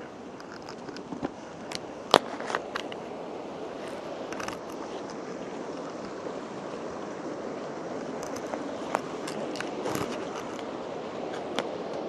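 Mountain stream rushing over rocks in a steady wash, with scattered sharp clicks and scrapes over it; the loudest knock comes about two seconds in.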